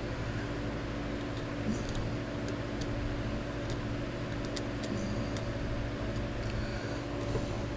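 Steady mechanical hum, with faint scattered ticks of pins being pressed into the planking of a model boat hull.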